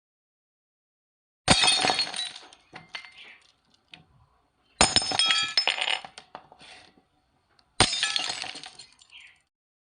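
Glass shattering three times, a few seconds apart: each time a sharp crash, then the pieces tinkling and scattering as it dies away.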